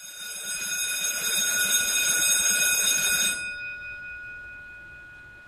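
Electric bell ringing loudly, like a school bell, for about three and a half seconds, then stopping abruptly; its tone rings on and slowly fades.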